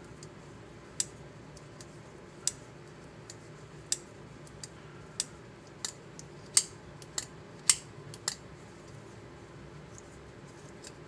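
Vosteed Mini Nightshade crossbar-lock folding knife being opened and closed repeatedly to work in freshly added lube: about ten sharp metallic clicks as the blade snaps against its new, stiffer lock springs. The clicks are irregularly spaced and come more quickly in the second half.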